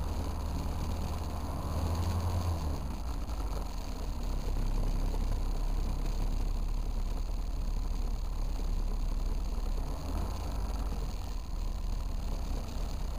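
Powered parachute's engine and propeller running steadily in flight, a low drone with wind buffeting the microphone.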